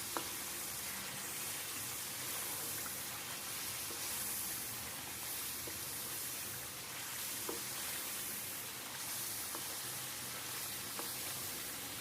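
Chicken, onion and tomato curry sizzling steadily in oil in a pan as it is fried down with its spices, with a few light clicks.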